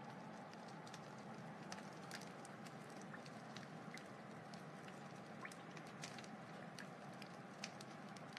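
Wood fire burning: a low steady hiss with many small, irregular crackles and pops.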